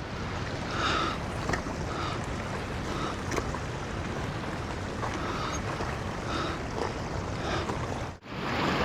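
Steady rush of running mountain water, with wind on the microphone, and a soft sound repeating roughly once a second. The sound cuts out briefly near the end.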